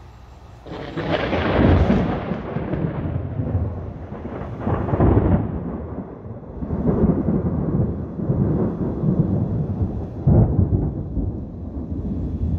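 Thunder: a loud clap about a second in that rolls on as a long rumble, swelling again several times, around five, seven and ten seconds in.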